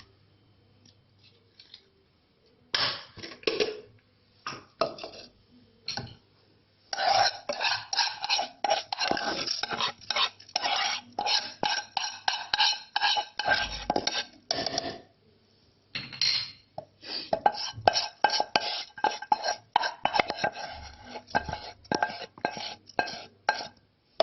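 Flaxseed being ground by pounding in a mortar with a pestle: a few scattered knocks, then rapid, ringing metallic strikes in two long bouts with a brief pause between them.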